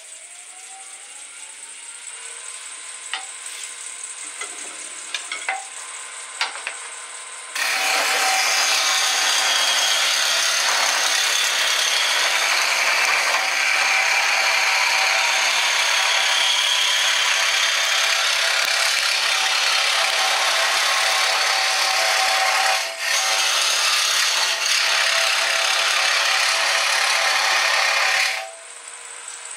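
Wood lathe spinning a hardwood handle blank while a turning gouge cuts into it. A quiet running hum is followed, about a quarter of the way in, by a sudden loud, steady cutting noise. The noise breaks briefly about three quarters through and stops abruptly just before the end.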